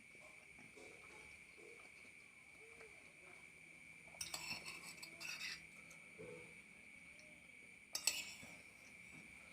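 Cutlery clinking against a plate while eating: a short run of clinks about four seconds in and one sharper clink about eight seconds in.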